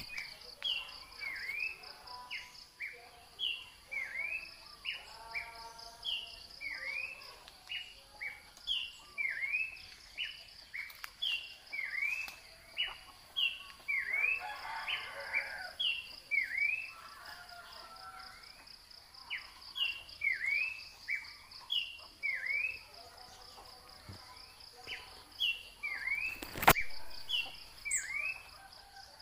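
An animal's short, high chirping calls, each sweeping down and back up, repeat about once a second over a steady pulsing drone of insects. A single sharp click sounds near the end.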